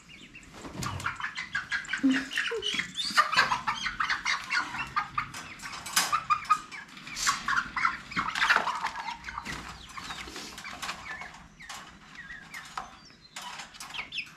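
Young chickens squawking and flapping their wings as they are caught by hand and put into a wire crate; many short, high calls starting about a second in, busiest in the middle and thinning out near the end.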